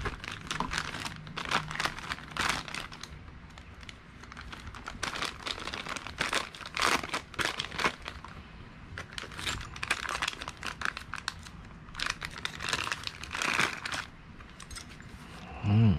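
Clear plastic packaging bags crinkling and rustling in irregular bursts as hands handle and unwrap motorcycle foot peg parts.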